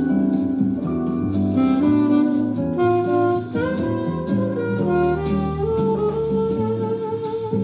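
Alto saxophone playing a slow jazz melody line of held and moving notes, with a backing track of drums and accompaniment underneath.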